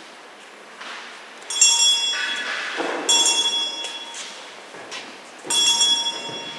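A bell rung three times, each ring a bright metallic tone that dies away.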